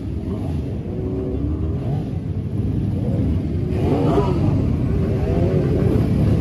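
Several sport motorcycle engines running as the bikes roll slowly past in a line. One engine is revved, rising and falling, about four seconds in.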